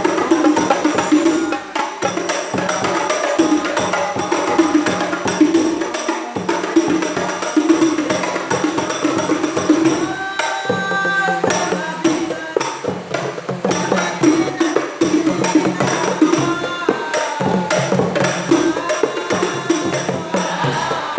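Terbangan frame drums (rebana with jingles) played in a dense, steady rhythm of slaps and jingles.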